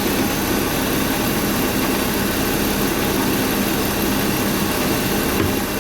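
BMW E36 328i's inline-six engine idling steadily.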